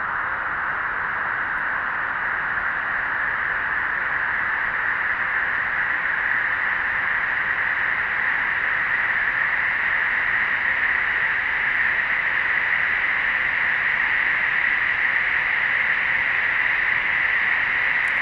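Snowstorm wind blowing as a steady rushing hiss, slowly growing louder.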